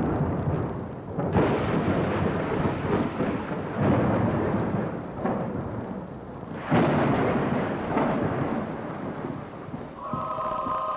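Thunderstorm: rolling thunder over steady rain, with fresh rolls breaking about a second in, near four seconds and near seven seconds. Near the end a steady held musical tone comes in.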